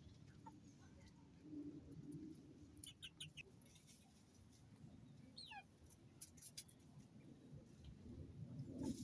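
Quiet, with a faint low rumble, a few sharp ticks around three and six seconds in, and one short high call falling in pitch a little past five seconds: Polish chickens pecking at a plastic feed dish and calling softly.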